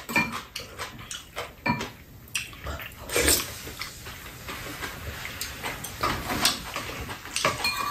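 Metal spoons and chopsticks clinking and scraping against bowls, a pan and a metal tray during a meal. The clinks are scattered and irregular, with a few brief louder ones.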